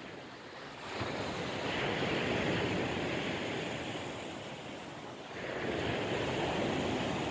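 Sea waves breaking on a sandy shore, the surf swelling twice: about a second in and again about five and a half seconds in.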